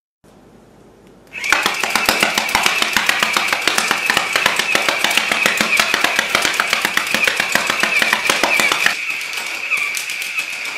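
MB-32 hand-cranked 12-barrel mini-gun style rubber band blaster firing: a fast run of clicks over a steady high whine that starts about a second in. The clicks grow lighter near the end.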